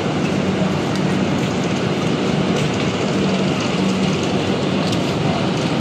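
Steady, loud train noise at a railway platform, with a low hum that drops out and comes back several times.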